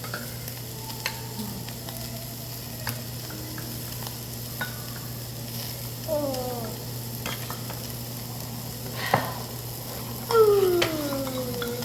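Meat sizzling on a tabletop grill, with scattered light clicks of utensils and a steady hum. A young child's voice gives two short falling sounds, a faint one midway and a louder one near the end.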